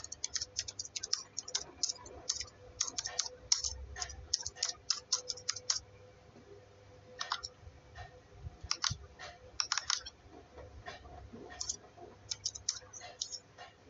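Computer keyboard typing: a quick run of keystrokes for about six seconds, then scattered keystrokes in small clusters.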